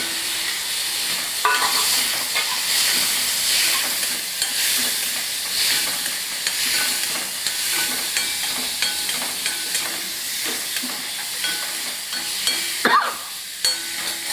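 Onions and tomato frying in oil in a kadai with a steady sizzle, a spoon scraping and clacking against the pan as they are stirred.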